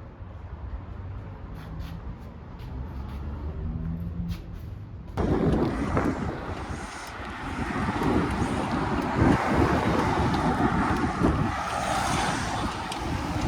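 Wind buffeting the microphone, with road and traffic noise, while riding a cargo bike along the road. A low, quieter rumble at first, then about five seconds in the wind noise turns suddenly much louder and stays so.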